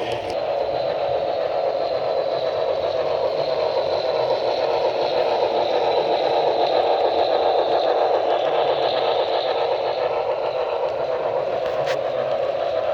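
Model train running on the layout: a model steam locomotive and its freight cars rolling along the track, a steady rumbling hum with a thin high whine over it that swells slightly and eases off. There is one sharp click near the end.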